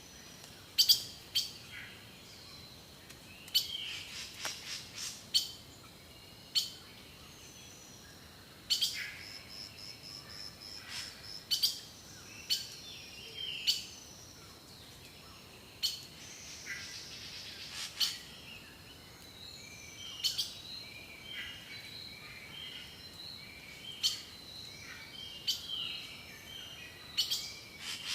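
Several songbirds calling and singing: short sharp chips and brief whistled notes scattered throughout, with a quick trill about nine seconds in.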